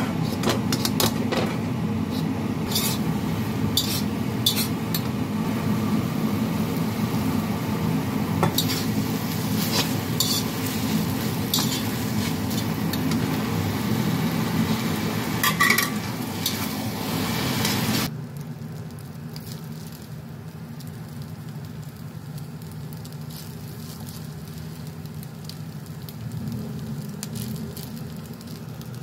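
Glass noodles stir-frying in a wok: a steady sizzle, with a metal utensil clinking and scraping against the pan as the noodles are stirred and tossed. About eighteen seconds in, the sound drops suddenly to a quieter, steadier sizzle with fewer clinks.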